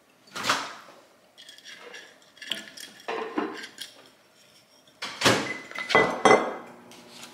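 Dishes and food containers being handled at a meal: a series of separate clattering knocks and scrapes, the loudest cluster about five to six and a half seconds in.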